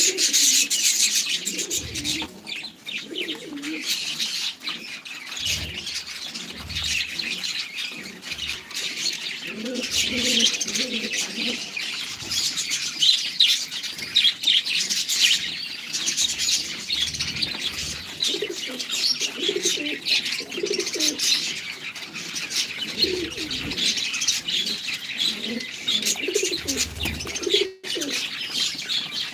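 A flock of caged fancy birds: repeated low cooing phrases over constant busy high chirping of small birds.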